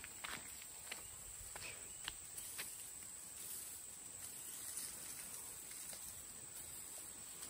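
Clumps of grass and weeds being torn by hand out of dry soil, with a few soft crackles and snaps of roots in the first couple of seconds. A steady high insect drone runs underneath.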